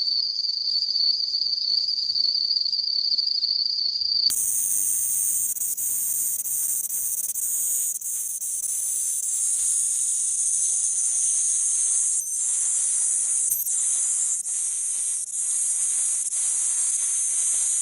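Crickets chirping: a steady, single-pitched trill for about four seconds, then an abrupt switch to a denser, higher-pitched chorus of many insects.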